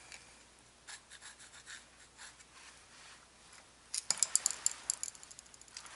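Rear brake pads and hardware being handled against the caliper bracket: faint metal scraping and rubbing, then a quick run of sharp scratchy clicks starting about four seconds in.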